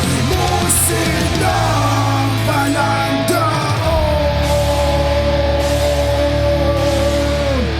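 Heavy metal band playing an instrumental passage: distorted guitars and bass. A lead melody settles about halfway through into one long held note with vibrato, which bends down just before the end.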